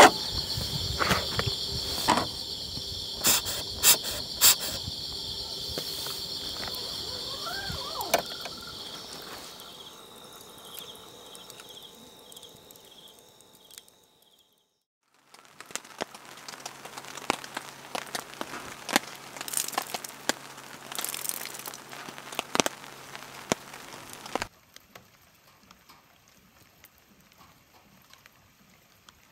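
Night insects trilling steadily, with a few sharp knocks and clicks in the first seconds; the trilling fades and breaks off about halfway. After a short gap comes a stretch of irregular crackling and clicking over a faint low hum, which stops abruptly, leaving quiet.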